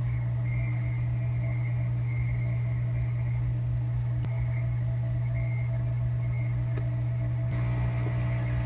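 Hot air rework station running steadily, a constant low hum with a faint rush of air from its nozzle as it heats a surface-mount capacitor to desolder it.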